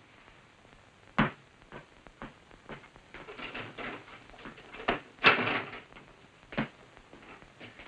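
Boot footsteps across a floor, a knock-like step about every half second, then a door being opened a little after five seconds in, with a louder rattle of the latch and the door swinging.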